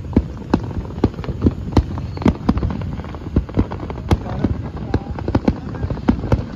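Aerial fireworks display: a rapid, uneven string of sharp bangs from shells bursting, several a second, over a continuous low rumble.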